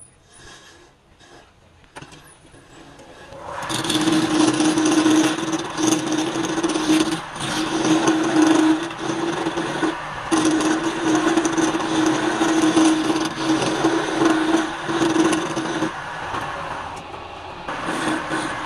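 Wood lathe spinning a wooden tool handle while a hand-held turning chisel cuts into it: a steady hum with a loud hiss of shavings coming off. The cutting comes in about three and a half seconds in and eases briefly near the end.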